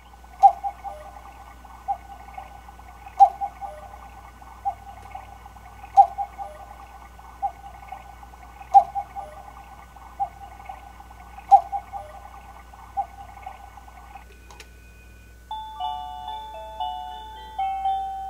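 A 932QM Fox and Grapes quartz cuckoo clock striking the hour, calling "cuckoo" over and over, about one call every second and a half. After a short pause, near the end, it starts its chiming music-box melody.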